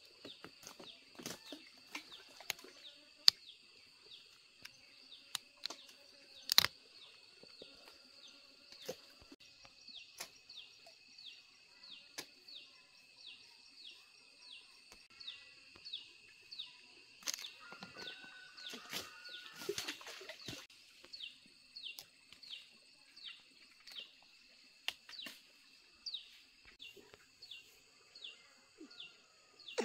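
High-pitched chirping call repeated about twice a second over a steady high hum, with scattered sharp snaps and clicks and a patch of rustling from branches and figs being handled in the tree.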